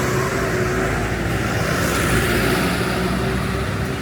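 A motor vehicle's engine running steadily with road noise, a low even hum with no sudden events.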